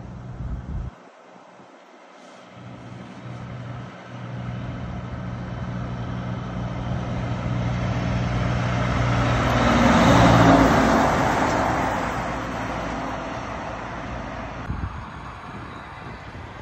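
Heavy truck and trailer approaching with its diesel engine running steadily, getting louder until it passes close by about ten seconds in with a rush of tyre noise, then fading away.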